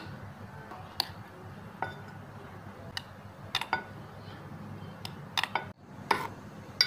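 A metal spoon clinking lightly against a steel pot and a glass baking dish while custard is spooned over bread slices: about eight short clinks at uneven intervals.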